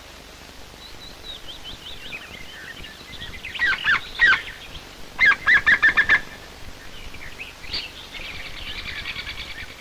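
Woodpeckers calling: scattered chirps, then loud sharp calls, a fast run of about eight harsh calls around five seconds in, and a rapid chattering near the end.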